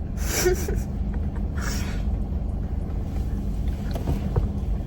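A steady low rumble, with two short rustling hisses in the first two seconds.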